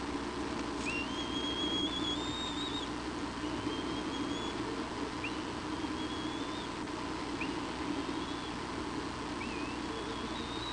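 Bald eagle giving a series of five thin, high whistled calls, each a second or two long, jumping up at the start and then held, over a steady low hum.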